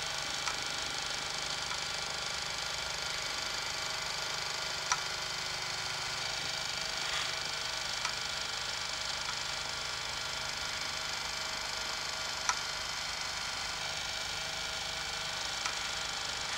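Motors of a DIY three-axis motion-control timelapse dolly running as the rig moves, a steady high whine with a few faint clicks scattered through.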